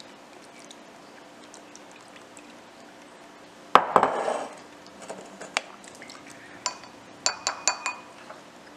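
A sharp knock and a short splash of liquid about four seconds in as fish sauce is measured into a small glass bowl, then a plastic measuring spoon taps against the glass, a few single ticks and a quick run of ringing glass clinks near the end.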